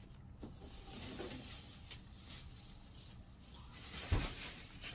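Plastic bag and cling film rustling and crinkling as they are handled, with a single dull thump about four seconds in.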